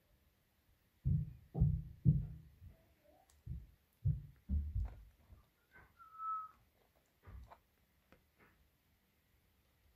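Soft, dull low thumps of hands handling a subwoofer's cone while a black dust cap is set over the voice-coil opening, several in quick succession in the first half and one more later. About six seconds in there is one short whistle-like tone.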